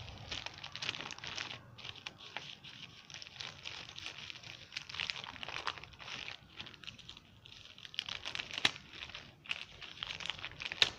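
Plastic courier mailer bag crinkling and crackling as hands squeeze and tear it open, with two sharper snaps, one about nine seconds in and one near the end.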